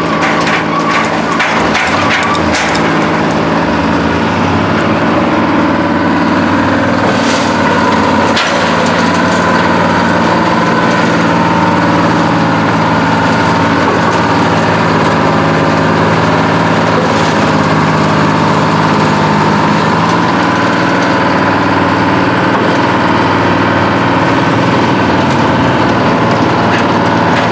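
Bucyrus-Erie 22-B cable shovel running steadily as it works, its engine note changing around 8 seconds in and again around 20 seconds in, with a few sharp clanks in the first couple of seconds.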